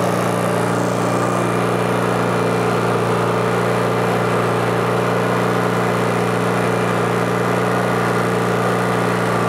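Briggs & Stratton P3000 inverter generator running steadily at its regular engine speed with eco mode off, a constant even drone. Close by it measures about 75 decibels.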